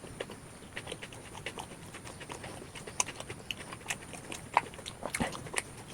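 Close-miked chewing and mouth smacking of a tortilla wrap filled with spicy beef rendang and lettuce: irregular wet clicks and smacks, a little denser near the end.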